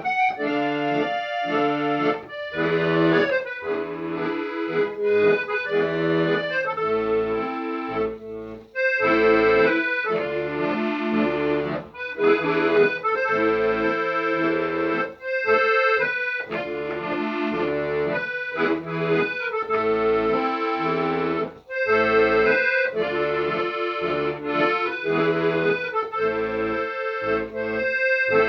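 Instrumental music: a melody over held chords, with low notes coming in a regular beat.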